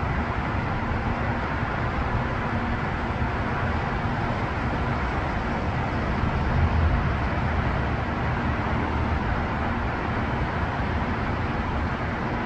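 Steady hum of road traffic on a multi-lane elevated highway, swelling slightly about six to seven seconds in.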